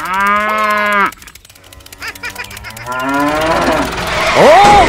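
Cow mooing sound effect: one loud call lasting about a second, then a second, falling moo around three seconds in. A short rising-and-falling tone follows near the end.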